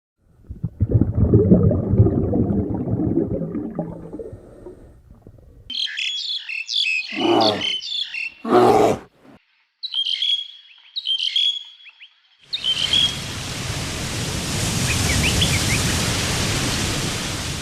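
A string of separate animal sound clips. First comes a low, rough rumbling call lasting about five seconds. Then, after a short gap, high chirping bird calls with two brief lower cries among them, and finally scattered chirps over a steady hiss.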